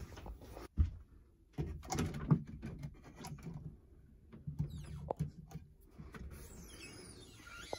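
Scattered clicks and knocks of handling, with a hand gripping and turning a recessed latch handle on a storage compartment door.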